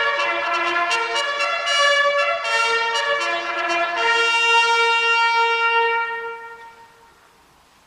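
Three bugles sounding a military bugle call together, in short notes that step between pitches. It ends on one long held note that dies away about seven seconds in.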